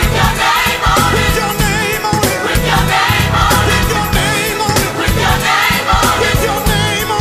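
Gospel music: a choir singing over a full band with a strong bass line.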